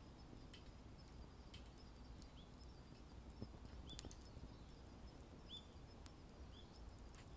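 Wood campfire crackling faintly, with sparse sharp pops and ticks, the loudest about four seconds in.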